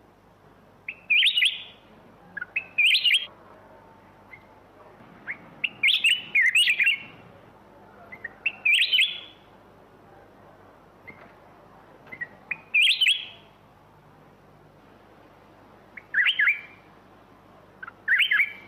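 Black-crested bulbul singing: short, bright, warbled phrases, about eight of them, each about half a second long with pauses of one to three seconds between.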